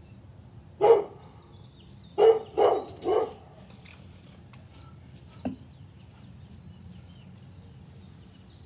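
A dog barking: one bark about a second in, then three barks in quick succession around two to three seconds in.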